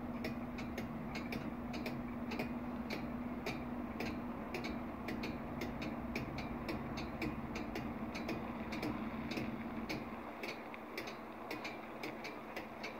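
Italian FS88 electronic level-crossing bells ringing in a steady, rapid run of strikes, about three a second. Under them a low steady hum stops about ten seconds in.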